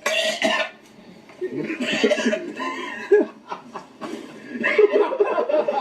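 Several people chuckling and snickering, with a sharp breathy outburst right at the start.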